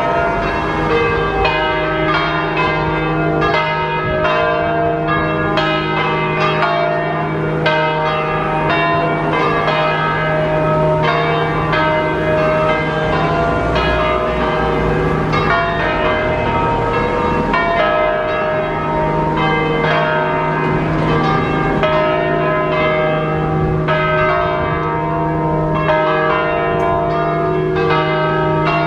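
Full swinging peal (distesa) of a six-bell church ring tuned in a slightly flat E-flat, bronze bells cast by Mazzola in 1901 and by Vallino of Bra in 1870. Strokes from all the bells overlap, several a second, over a steady low hum of ringing bells.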